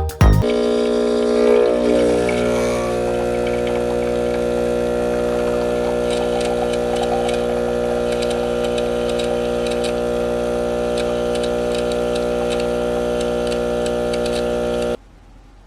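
Electric appliance's pump or motor running with a steady mains hum and faint crackling, cutting off suddenly near the end.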